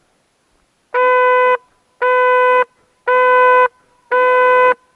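Hunting horn blown in four short, steady blasts on one note, about a second apart.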